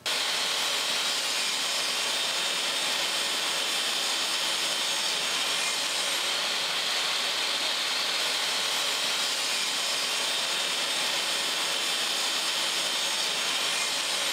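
Table saw running steadily as it rips a mahogany block lengthwise.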